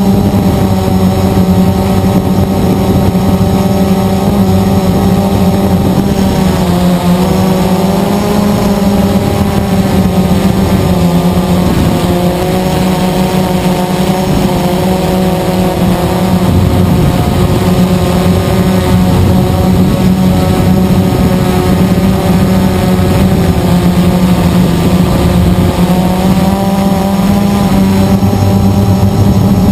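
Blade 350 QX quadcopter's motors and propellers buzzing steadily in flight, heard up close from the airframe; the pitch wavers and shifts several times as the throttle changes while it climbs and manoeuvres.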